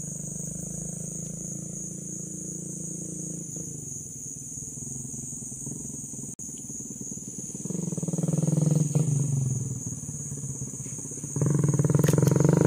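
Low, steady engine hum that swells about two-thirds of the way through and grows louder again near the end, over a constant high-pitched insect buzz.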